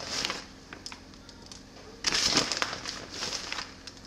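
Plastic bag of shredded Asiago cheese crinkling in three short bursts as pinches of cheese are taken out and sprinkled: at the start, about two seconds in and about three seconds in. A faint steady hum lies underneath.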